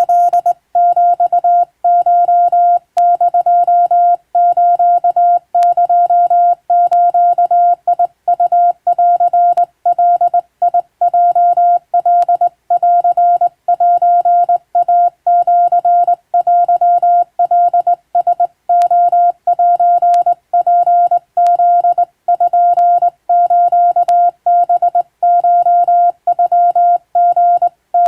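Hand-keyed Japanese (wabun) Morse code: a single steady beep tone switched on and off in a continuous run of dots and dashes.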